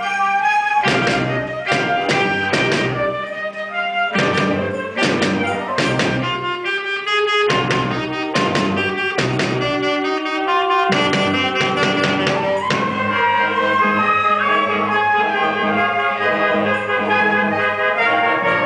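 A small school concert band of brass, woodwinds and drum kit playing live. For about the first thirteen seconds it plays short accented chords with percussion hits in uneven groups, then it moves into held brass chords.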